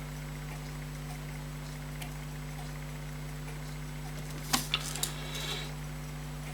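Steady low electrical hum, then about four and a half seconds in a few sharp small clicks and a brief rapid rattle from handling pocket watch parts.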